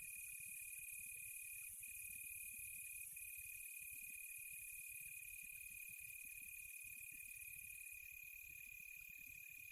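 Crickets and other insects trilling steadily: one continuous high, even trill with a higher shimmering hiss of insects above it, faint, with a low rumble underneath.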